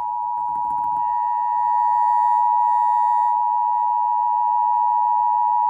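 Emergency Alert System two-tone attention signal relayed by radio station KNCT: a steady, loud held tone of two close pitches, played through a computer's speakers. It announces that an emergency alert, here a severe thunderstorm warning, is about to be read.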